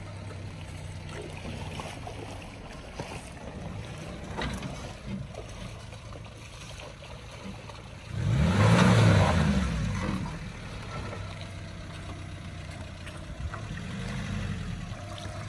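Maruti Suzuki Gypsy 4x4's engine running at low revs as it crawls through a rocky streambed. It revs up and back down once, loudly, about eight seconds in, with a smaller rise near the end.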